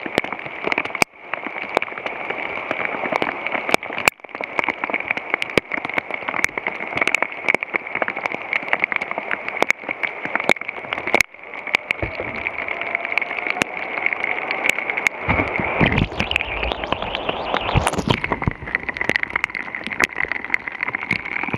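Heavy rain falling on the river as a steady hiss, with raindrops striking the camera as many sharp ticks. About fifteen seconds in, heavier rushing and splashing of white water join in.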